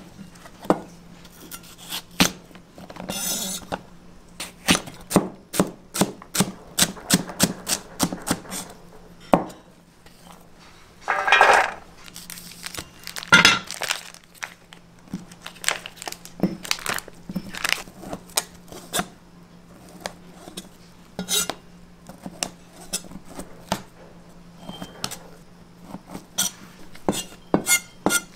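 Chinese cleaver chopping on a plastic cutting board, quick runs of knocks cutting celery stalks and, later, slower single cuts through sausage. About eleven seconds in there is a second of rustling as a plastic food packet is opened. A steady low hum runs underneath.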